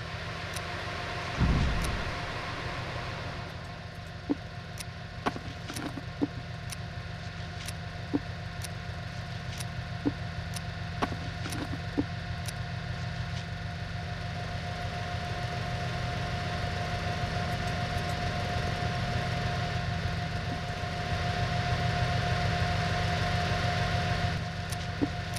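A farm machine's engine drones steadily, with a constant whine above it and sharp clicks or rattles about once a second. There is a heavy thump about a second and a half in, and the drone grows louder near the end.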